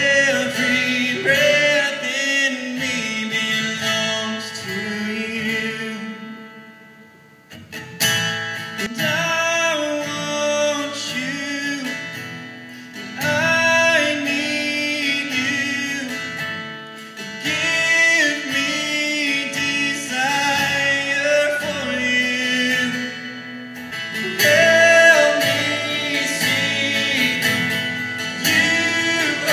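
A man singing a worship song while strumming his acoustic guitar. About six seconds in the music falls away almost to silence, and it comes back with a strum about two seconds later.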